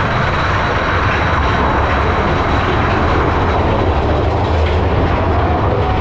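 Big Thunder Mountain Railroad mine-train roller coaster running on its track, heard from a seat on board: a loud, steady rumble and rattle of the cars and wheels.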